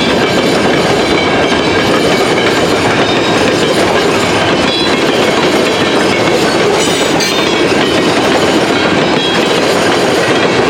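Loaded freight cars of a slow-moving mixed freight train rolling past close by: a loud, steady clatter of steel wheels on the rails.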